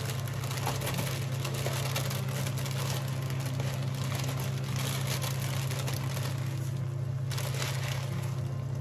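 Plastic bag crinkling and rustling as dry egg noodles are shaken out of it into a wok, with many small crackles over a steady low hum.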